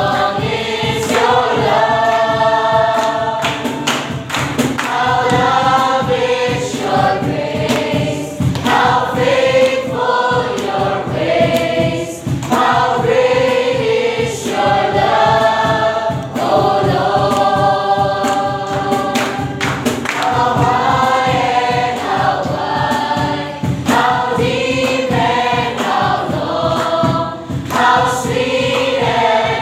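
A group of people singing a praise and worship song together, heard from a phone in a pocket.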